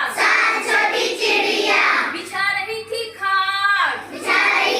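A group of children singing a Hindi counting rhyme in unison with a woman, in short chanted phrases.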